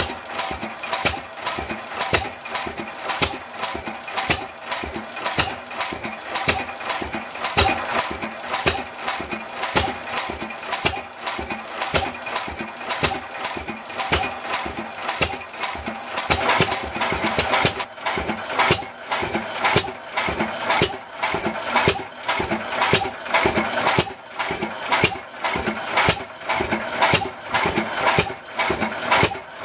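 7 hp Waterloo Boy Type K single-cylinder hit-and-miss stationary engine running, an even, rapid rhythm of sharp knocks and exhaust beats.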